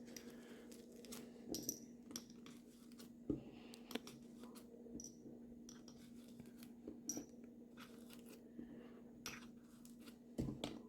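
Rifle cartridges being pushed one by one into the elastic shell loops of a cheek rest on a rifle stock: scattered faint clicks and small knocks of handling, with a few sharper clicks.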